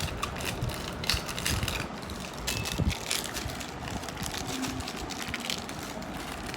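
Irregular crunching and crackling clicks from a homemade fidget toy being squeezed and handled.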